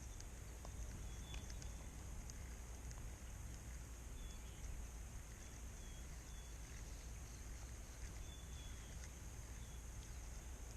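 Quiet outdoor lakeside ambience: a low steady rumble and a faint steady high hiss, with a few short faint chirps every second or few.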